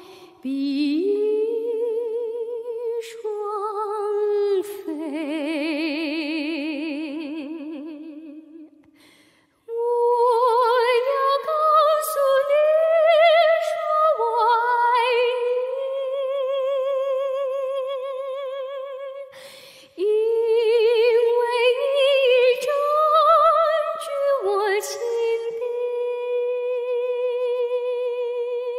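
A woman singing a slow, unaccompanied melody of long held notes with a wide vibrato. The line breaks off twice, about ten and twenty seconds in.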